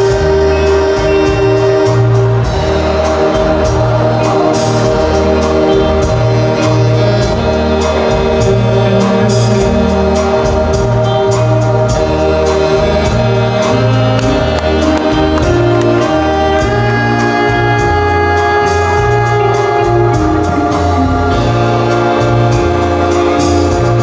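Loud recorded show music: sustained choir-like voices over held chords, with a steady bass and drum beat.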